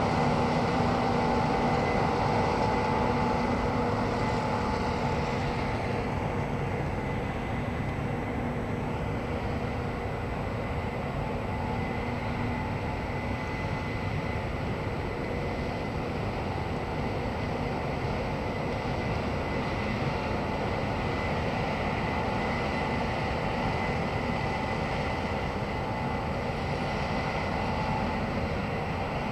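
Corn-harvesting machinery running steadily: a continuous engine drone with several held whining tones, easing a little in level over the first several seconds.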